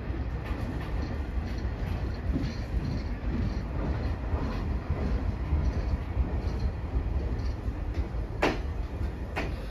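Chichibu Railway electric commuter train pulling slowly into a station, with a steady low rumble of wheels and running gear on the rails. Two brief sharp noises come near the end, about a second apart.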